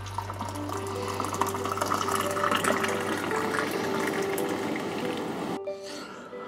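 Coffee poured from a French press into a ceramic mug: a steady splashing fill that stops suddenly about five and a half seconds in.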